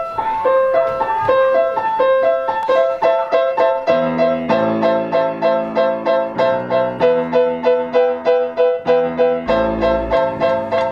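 Piano playing a quick, rhythmic melody of separate notes, with a lower part joining about four seconds in.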